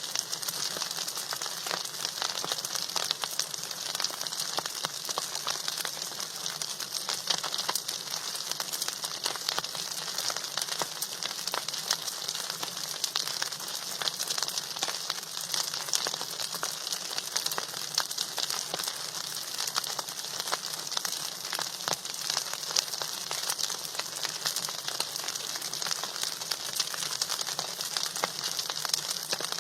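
Cauliflower curry frying in a pan: a steady, dense sizzle and crackle that never lets up.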